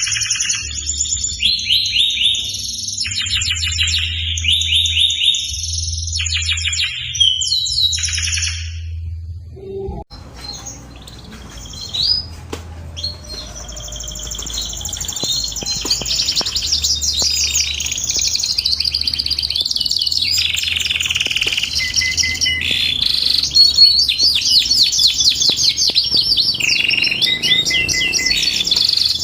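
Canary singing long, rapid trilled song phrases in a high register. The song breaks off about ten seconds in, then resumes and builds into a near-continuous trilling run. A low steady hum runs under the first part.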